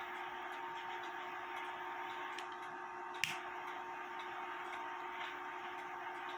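Low steady hiss with a faint hum, faint ticks about once a second, and one sharp click a little past the middle.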